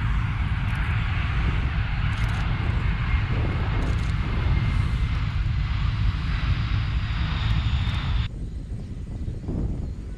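Aircraft engine noise, loud and steady with a deep rumble, from an aircraft flying at an air show; it cuts off suddenly about eight seconds in, leaving a much quieter background.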